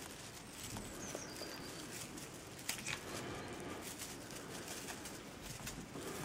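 Kittens scuffling and tussling on a soft blanket: light rustling and pattering with scattered soft taps, the sharpest a little under three seconds in, and a faint high chirp about a second in.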